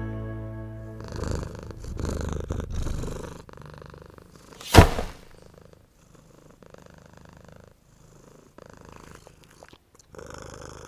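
Domestic cat purring in repeated breaths, strongest in the first few seconds and fainter later on. A single sharp thunk about five seconds in is the loudest moment, and closing music fades out at the start.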